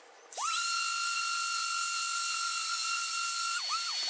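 Random orbit sander running on a hardwood cutting board with a Mirka Abranet mesh disc, played back at eight times speed so its motor sounds as a high, steady whine. It spins up about half a second in, and near the end its pitch drops sharply and comes back a few times.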